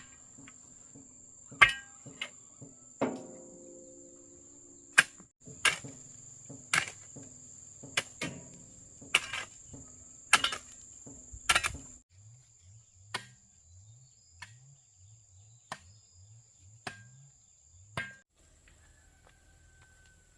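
Sharp knocking strikes about once a second, like chopping or hammering, over a steady high insect whine. The strikes turn into softer, quicker low knocks later on.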